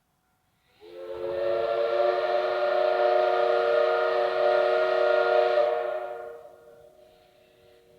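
Steam whistle of a C12 steam locomotive sounding one long blast of about five seconds, several steady tones together, then dying away over a few seconds.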